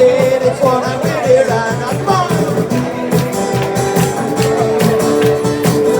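Live band music with a steady beat, a wavering melody line over it in the first half, then sustained held notes.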